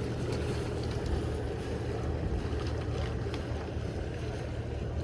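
Boat engine running steadily with a low hum, over wind and water noise.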